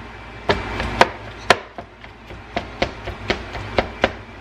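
Kitchen knife chopping tender pressure-cooked beef chuck on a plastic cutting board: irregular sharp knocks of the blade on the board, two or three a second, starting about half a second in.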